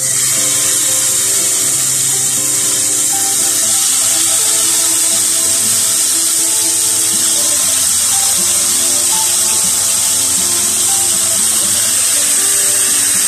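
Loud, steady sizzling of chicken legs in a wet green yogurt, mint and coriander marinade frying in hot oil in a non-stick pan. It starts suddenly as the first leg goes in.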